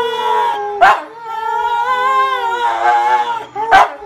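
A dog howling along with a singer's voice from a TV, in long, wavering held notes. Two brief sharp sounds cut in, about a second in and near the end.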